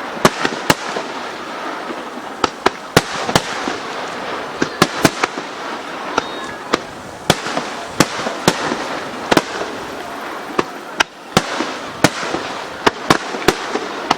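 Aerial fireworks in a rapid starmine barrage: sharp bangs of bursting shells, about two or three a second and irregular, over a steady crackle.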